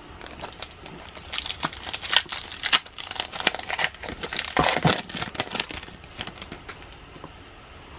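Plastic trading-card pack wrapper crinkling as it is handled and torn open: a dense run of sharp crackles that thins out over the last couple of seconds.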